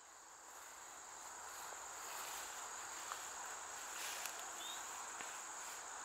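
Steady high-pitched chirring of field insects, fading up over the first couple of seconds, with a few faint clicks.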